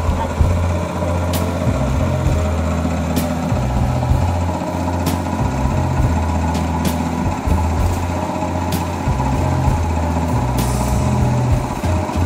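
Engine-driven water pump running steadily, pumping the pond out through its hose. A sharp tick sounds about every two seconds over the engine note.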